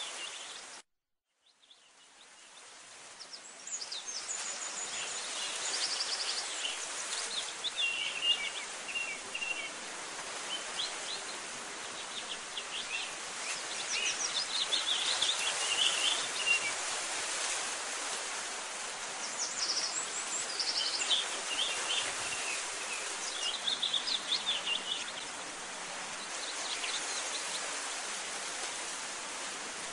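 Outdoor ambience: scattered bird chirps and short trills over a steady hiss. The sound cuts out just under a second in and fades back in over the next few seconds.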